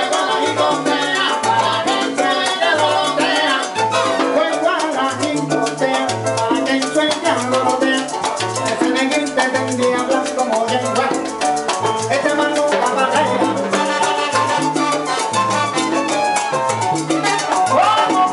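Live salsa band playing: a repeating bass line underneath dense percussion, with a singer on the microphone.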